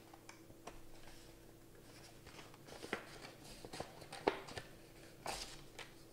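Paper envelope with a button-and-string closure being unwound, opened and a card slid out: faint rustling of stiff paper with scattered soft clicks, the sharpest about four seconds in.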